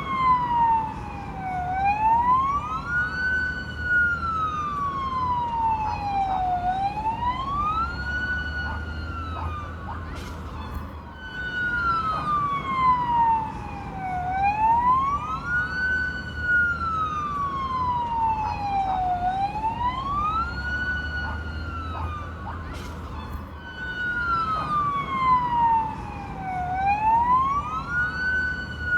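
Fire truck siren wailing: its pitch rises quickly, holds briefly at the top and falls more slowly, about five seconds per cycle, over a low rumble.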